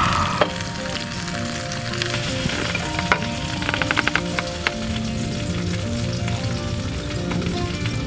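Campfire crackling and hissing under soft instrumental background music, with a quick run of sharp clicks about four seconds in.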